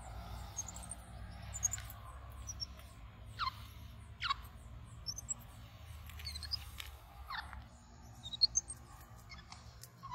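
High-pitched animal calls: a few short squeaks that slide quickly downward in pitch, spaced a second or more apart, among fainter, higher chirps.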